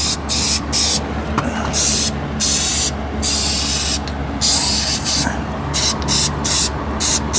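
Aerosol rattle can of touch-up paint spraying a light coat in a long run of short bursts, the hiss starting and stopping sharply many times, over a steady low hum.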